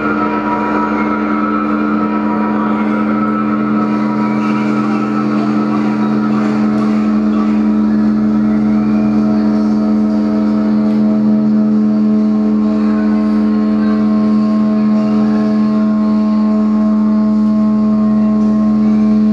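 Amplified electric guitar feedback drone: several steady held tones stacked over a strong low tone, slowly swelling a little louder, with new higher tones coming in about halfway through.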